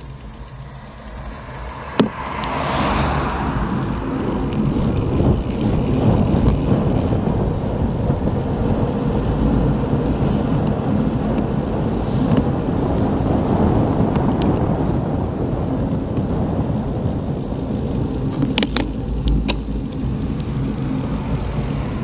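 Wind rushing over a bike-mounted camera's microphone, with road rumble from the bicycle rolling along. There is a sharp click about two seconds in, after which the rushing grows louder, and a few more sharp clicks near the end.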